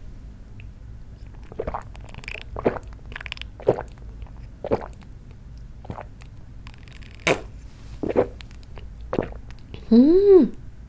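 A person drinking makgeolli from a metal bowl, gulping and swallowing about once a second. Near the end comes a short satisfied vocal 'ahh' after the drink, its pitch rising and falling.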